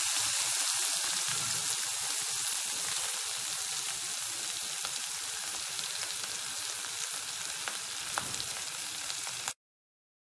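Butter sizzling on a very hot cast-iron sizzler plate under rice, vegetables and sauce: a steady hiss with small crackles and pops. It cuts off suddenly near the end.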